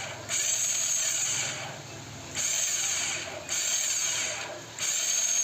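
Hero Passion Pro's electric self-starter motor running in short bursts, about four presses of the starter button of roughly a second each, with a high whine. It runs without the loud noise it made before; a new bearing (699ZZ) has been fitted in the starter motor.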